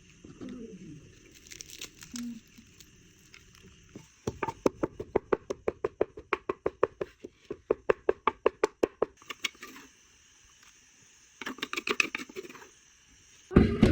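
Knife chopping rapidly on a cutting board, about five or six even strokes a second for about five seconds, then a shorter run near the end, with light crinkling of food or packaging before it.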